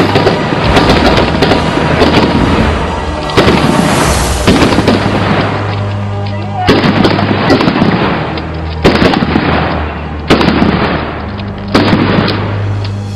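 Rifle fire and explosions from a battle: loud bangs every second or two with crackling shots between them, over background music.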